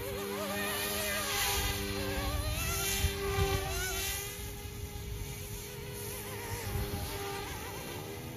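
Electric motor and rotor whine of a YuXiang F06 (Eachine E135) RC helicopter in flight, a buzzing whine whose pitch wavers up and down as it manoeuvres. It grows somewhat fainter in the second half as the helicopter moves away.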